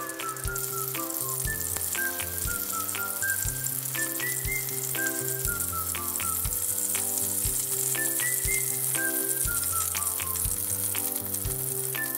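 Shrimp tempura frying in shallow oil in a frying pan, a steady sizzle. Light background music with a repeating melody and bass plays along.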